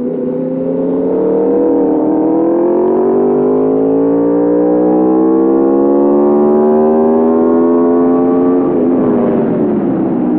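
2021 Aprilia RSV4 Factory's V4 engine and exhaust pulling hard under acceleration, the pitch climbing steadily for about eight seconds, then falling off near the end.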